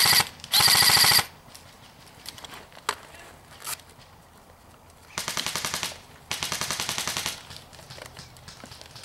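Airsoft guns firing on full auto in rapid bursts. A loud burst of about a second comes near the start, and two quieter bursts follow about halfway through.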